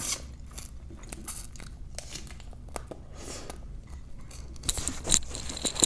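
Chewing and crunching of food, with many small wet mouth clicks; the crunching grows louder and busier near the end.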